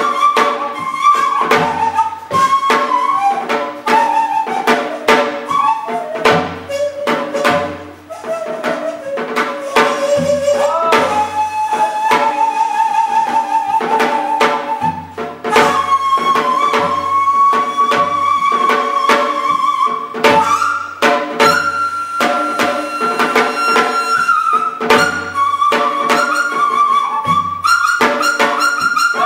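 Daegeum, the Korean bamboo flute, plays a slow melody of long held notes that bend and slide between pitches. Tabla strokes accompany it, with deep bass thumps recurring every second or two.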